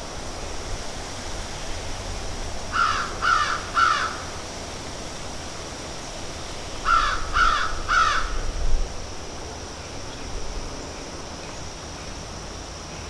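Crows cawing: two runs of three caws each, about four seconds apart, over a steady background hiss.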